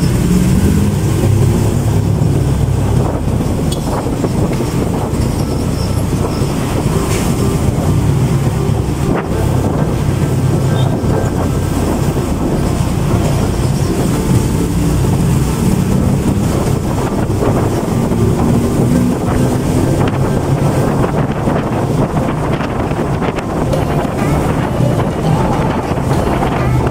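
Honda RS125 motorcycle engine running under way, with the engine pitch rising a few times as it picks up speed. Heavy wind buffets the microphone.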